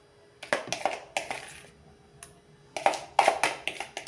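Metal spoon scraping and tapping a thick mayonnaise and spice mix out of a plastic tub onto raw chicken, in short groups of scrapes, loudest around three seconds in.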